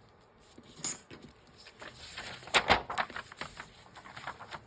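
Sheets of paper being handled and creased: irregular rustling and crackling, sparse at first and loudest about two and a half seconds in.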